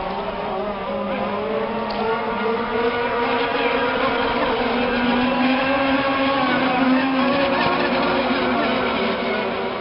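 Radio-controlled model racing boat's motor running flat out on the water, a steady high-pitched drone. It rises a little in pitch and grows louder as the boat passes closer, about two-thirds of the way in, then eases slightly.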